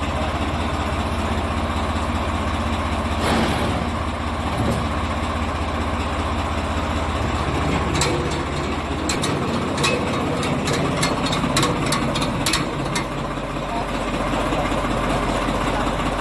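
Tractor engine idling steadily; its low drone changes pitch about nine seconds in. A run of short sharp clicks and knocks comes over it near the middle.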